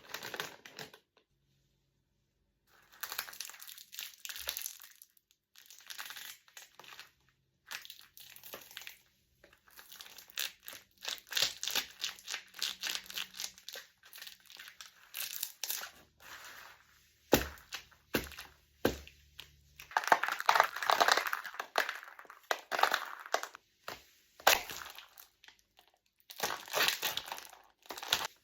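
Crunching and crinkling in irregular bursts of dense crackles and sharp clicks, with short pauses between them and the loudest bursts in the second half.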